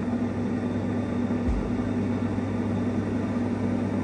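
Agaro Regency air fryer oven running on its rotisserie setting just after starting: a steady whir of its fan with a low hum. There is a soft low bump about a second and a half in.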